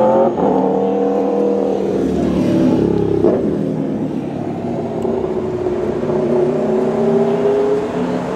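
Street traffic: a motor vehicle engine running nearby, its pitch sinking and rising slowly as it changes speed, with a single short knock about three seconds in.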